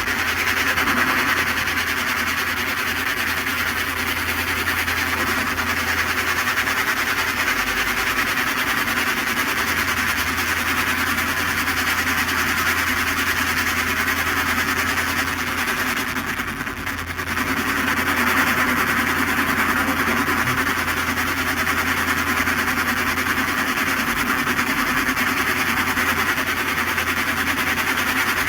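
Steady machine drone, unchanging except for a brief dip in level about two-thirds of the way through.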